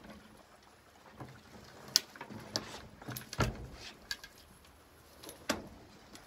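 Scattered knocks and clatters from a landing net and fishing gear being handled on a dock. The loudest is a dull thump about three and a half seconds in, with sharper clicks a second or so before it and another knock near the end.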